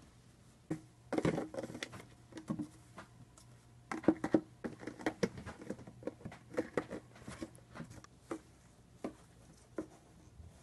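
A puppy playing with an empty plastic bottle: irregular crackles, clicks and taps as the thin plastic is bitten, nosed and knocked over the carpet, in three busy bursts and then a few scattered taps.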